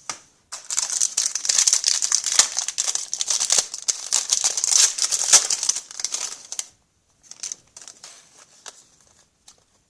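A hockey card pack's wrapper crinkling and tearing as it is opened, for about six seconds, followed by a few faint taps of cards being handled.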